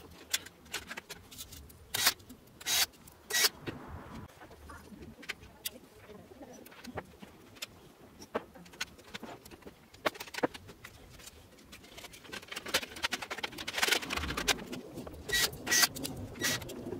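Sharp clicks and knocks of plastic and metal fuser-unit parts being handled and fitted together as a Ricoh copier fuser is reassembled. The clicks come more often near the end.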